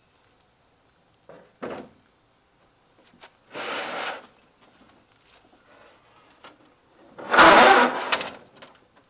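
A CRT television's plastic cabinet scraping and bumping on a metal-topped table as it is shifted and turned over by hand: three short scraping bursts, the last and loudest, with a dull thud, near the end.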